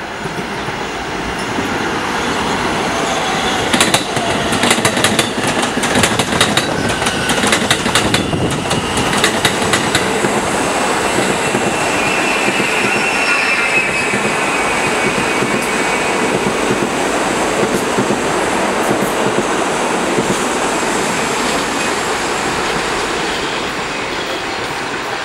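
New York City subway trains running through an open-air station: an R68 express and an R160 train. The wheels run on the rails with a steady noise. From about four seconds in, a rapid clickety-clack of wheels over rail joints lasts several seconds. A brief high wheel squeal comes about halfway through.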